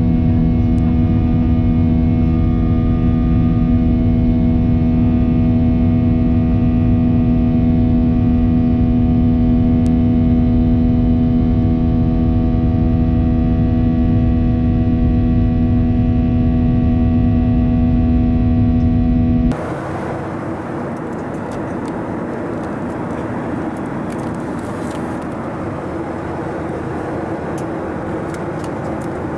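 Steady aircraft noise of a Boeing 737-800 before or around takeoff: a low rumble with a strong, steady hum and many held tones above it. About two-thirds of the way through, it changes abruptly to a quieter, even rushing noise with no tones.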